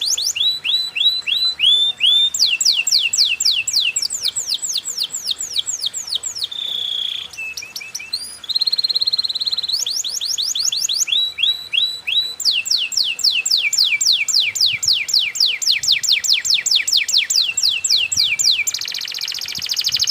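Canary singing a long, continuous song made of fast trills of repeated falling notes, several a second, broken twice near the middle by short held whistles. This is a lure song of the kind played to prompt other canaries to sing.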